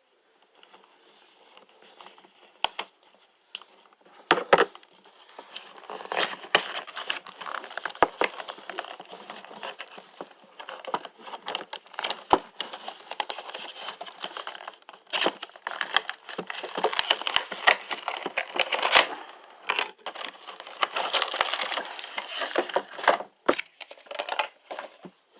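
Plastic and cardboard toy packaging crinkling and rustling by hand as an action figure is worked out of its box, with many sharp clicks and snaps. The first few seconds hold only scattered clicks; the crinkling grows dense about five seconds in.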